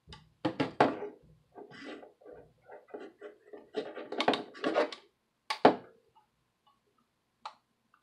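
Irregular clicks and knocks of a screwdriver and a laptop hard drive being handled as a screw is worked into the drive's metal mounting bracket. The screw won't go in the right way. Two sharp knocks stand out, one about a second in and one past the middle.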